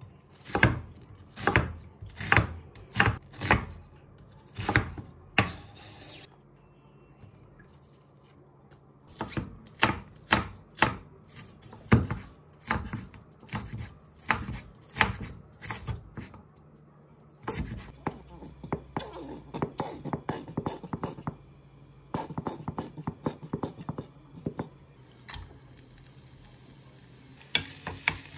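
Kitchen knife chopping onion and then green onion on a wooden cutting board: slow, separate strokes at first, then after a pause quicker and lighter chopping. Near the end, green onion goes into hot oil in a frying pan and starts to sizzle, making scallion oil.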